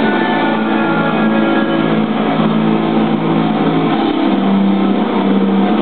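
Background music with guitar: steady held notes, with the chord changing about four seconds in.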